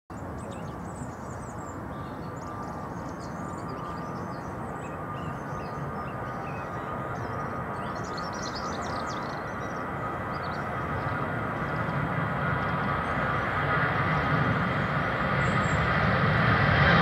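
Airbus A380's four jet engines running: a steady rumble with a high whine that grows steadily louder.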